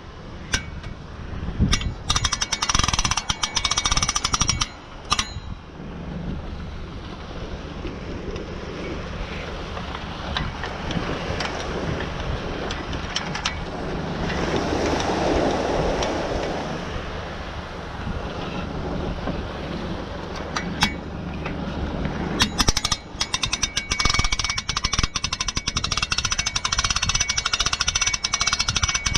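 Boat trailer hand winch being cranked, its ratchet pawl clicking rapidly as the strap winds the boat up onto the trailer. The clicking comes in two spells, at the start and again from about two-thirds of the way through, with a stretch of steadier rushing noise between.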